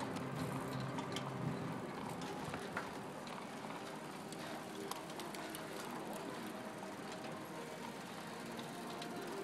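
Street ambience heard from a moving bicycle: a steady hiss of wind and tyre noise with scattered light clicks.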